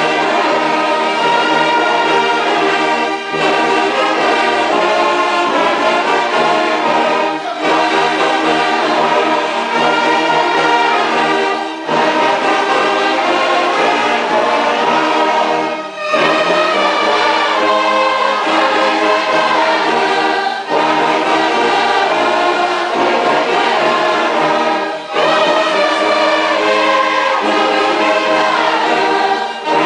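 Church orchestra with brass, trombone among them, playing a hymn in slow phrases of about four seconds each. A choir of voices sings along with it.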